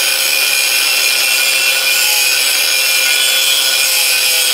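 Makita angle grinder with a cut-off disc cutting through a thick bar of hard old iron: a loud, steady grinding whine.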